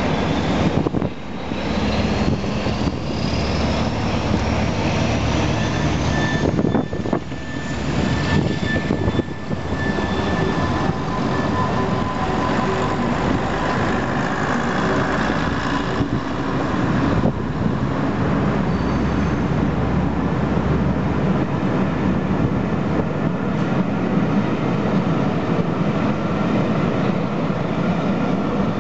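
Passenger train coaches rolling through a station: a steady rumble of wheels on the rails, with a whine rising in pitch over the first few seconds and a few thin high squeals.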